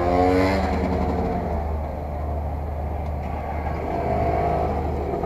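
Motorcycle engines idling with a steady low hum. An engine note falls in pitch over the first second, and another swells and rises slightly about four seconds in.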